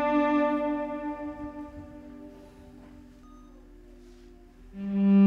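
Slow background music of long held notes that fade away, then a louder, lower note swells in near the end.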